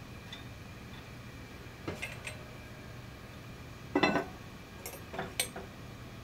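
Red glazed ceramic lid of a SOTO smoker pot set down onto its base with a clunk about four seconds in, followed by several light clinks as it is settled in place. A couple of faint clicks come about two seconds in, as the bacon goes onto the wire rack.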